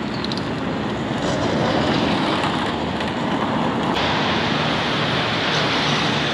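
Steady rushing noise of road traffic on a busy street, mixed with wind on the microphone.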